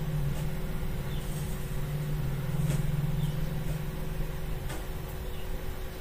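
A motor vehicle engine running, louder in the middle and dropping away about three-quarters through, with a faint steady tone above it. A few light clicks come from components being handled on the circuit board.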